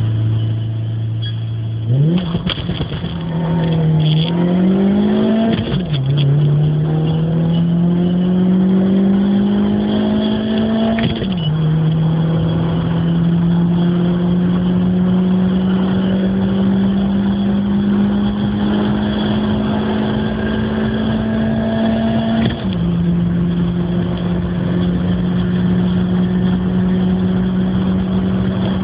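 Suzuki Swift 1.3-litre four-cylinder engine, heard from inside the cabin, idling for about two seconds and then pulling under full acceleration. Its pitch climbs steadily through each gear and drops sharply at each upshift, about six, eleven and twenty-two seconds in, with a smaller dip about four seconds in.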